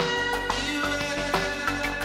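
Background music with held tones and a steady beat.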